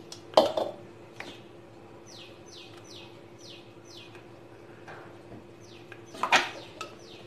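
Knocks and clinks as ground green chutney is scraped and tapped out of a mixer-grinder jar into a glass bowl, loudest about half a second in and again near the end. Between them a bird chirps two runs of short, quick falling notes, over a steady faint hum.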